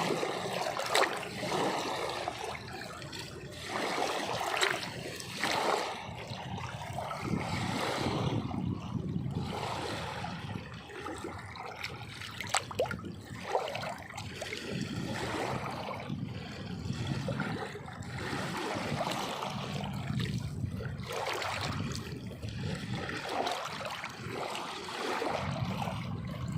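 Water splashing and trickling in irregular surges, with a few sharper splashes.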